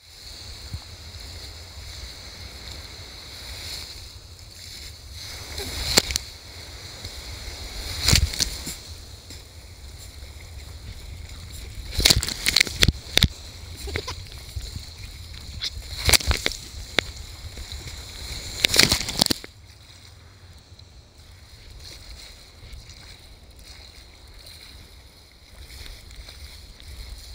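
Sea kayak being paddled out through surf: water sloshing around the hull, with several loud sudden splashes in the first two-thirds, then quieter from about 19 s on.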